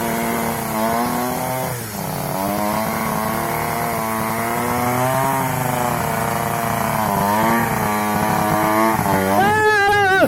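Trail motorcycle engine revving hard and held at high revs, its pitch wavering with the throttle. It dips about two seconds in and climbs sharply near the end.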